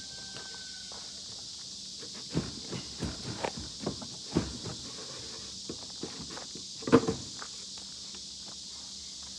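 Stuck wooden door on a chicken cart, its wood swollen, being knocked and worked loose: a run of irregular knocks and thumps, the loudest near the end. Insects trill steadily behind.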